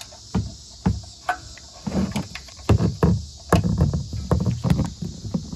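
Handling noise from a phone camera being moved around under a truck and brought down near a rubber floor mat: irregular knocks, taps and rustles, a few at first and then a busy cluster from about two seconds in. A steady high chirring of crickets runs behind it.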